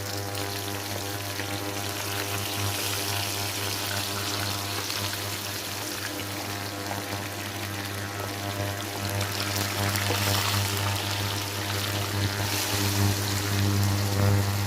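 Onions sizzling as they fry in hot coconut oil with whole spices, a steady crackling hiss that grows louder in the second half. A steady hum or musical drone runs underneath.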